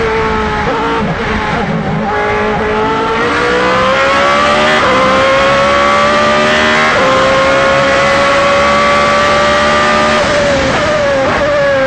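Reynard K02 Formula 3000 car's Mugen V8 at full throttle, heard onboard: the revs climb steadily, drop sharply at two quick upshifts about 5 and 7 seconds in, and climb again. Near the end the driver lifts off and the revs fall, with a short rev blip at a downshift.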